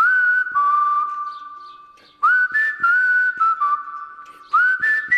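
Whistled tune of held notes, each phrase opening with an upward slide, starting abruptly and repeating about every two seconds over light clicks.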